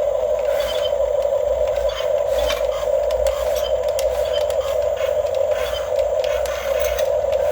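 Small electric motors of a Huina 1550 RC excavator running with a steady whine, with faint ticking over it.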